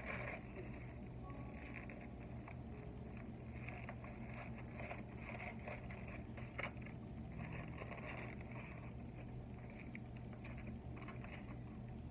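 Aluminium foil crinkling and crackling irregularly as a foil wrapping is unfolded by hand, over a steady low hum.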